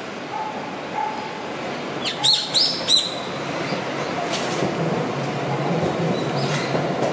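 Three sharp bird calls in quick succession about two seconds in, over steady street noise. In the last few seconds a low rumble builds as a Toden Arakawa Line streetcar passes.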